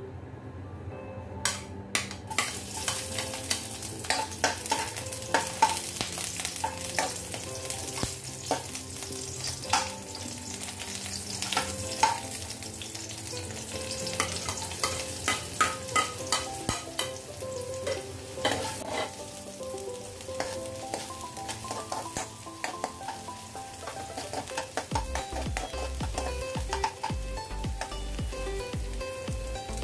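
Sliced garlic and then chopped onion frying in hot oil in a wok, sizzling from about two seconds in. A metal spatula scrapes and clicks against the pan as it stirs.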